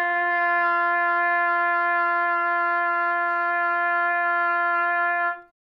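B-flat trumpet holding one long, steady tuning note, written G (concert F, about 347 Hz), which stops about five and a half seconds in. The note sits about 10 cents flat.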